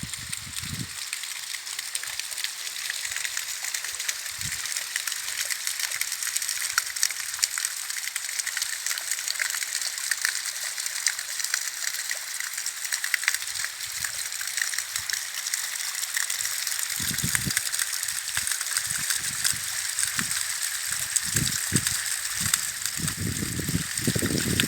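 Waterfall: a steady rush of falling water, heard as an even hiss. In the second half, irregular low thumps come in and grow more frequent toward the end.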